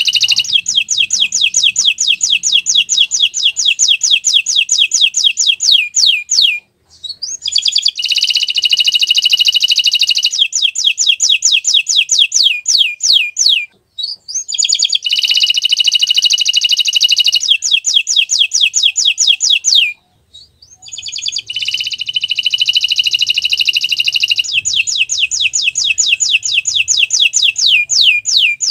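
Domestic canary singing: long, loud phrases of rapid, high-pitched repeated trilled notes, in four bouts broken by three short pauses.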